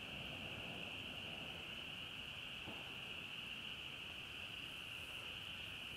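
A faint, steady high-pitched whine, with a single faint tick a little under three seconds in.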